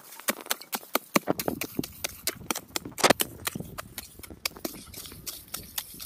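A short-handled hoe chopping into earth in quick, repeated strikes, about four or five a second, digging out a pit.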